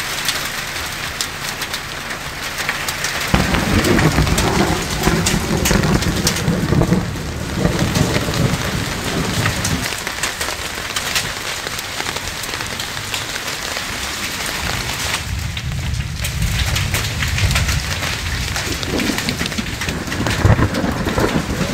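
Hail and rain falling on grass and the yard, a steady pattering hiss dotted with many sharp ticks of hailstones striking. Stretches of low rumble come and go twice.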